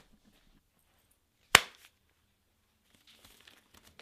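A single sharp slap of a hand striking someone, about a second and a half in, followed near the end by faint rustling of movement.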